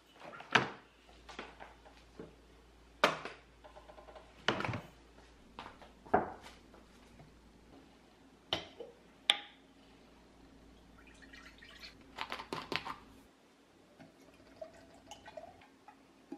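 Glass jars and a glass measuring jug being handled on a kitchen counter: a series of separate sharp knocks and clinks as they are picked up and set down, with liquid being poured.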